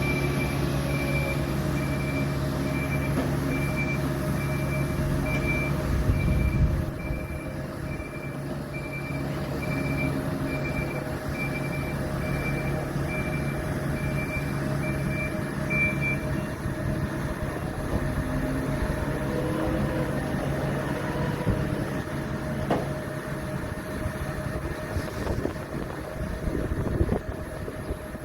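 Heavy machinery engines running steadily, with a reversing alarm beeping at a steady pace of somewhat more than one beep a second that stops a little past halfway. A louder rumbling burst comes about six seconds in.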